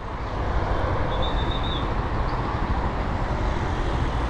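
Motorcycle on the move: a steady engine rumble mixed with wind and road noise.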